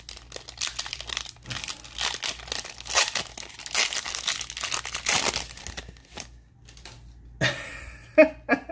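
Plastic wrapper of a 2020 Donruss football trading-card pack being torn open and crinkled by hand: dense crackling for about six seconds, then quieter rustling as the cards come out.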